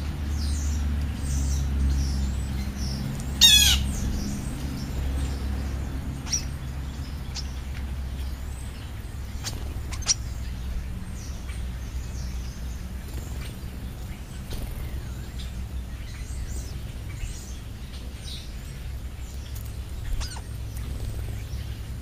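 House sparrows chirping in short, scattered notes while they feed, with one louder call about three and a half seconds in that falls steeply in pitch. A steady low rumble runs underneath.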